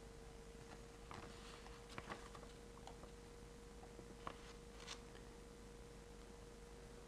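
Near silence: faint room tone with a thin steady hum and a few tiny clicks.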